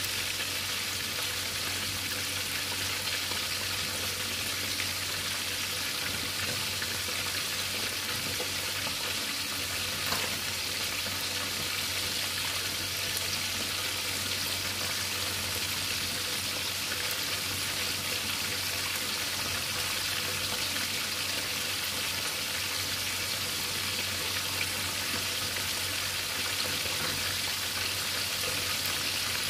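Whole tilapia frying in hot oil in a pan, a steady sizzle with fine crackling and one slightly louder pop about ten seconds in.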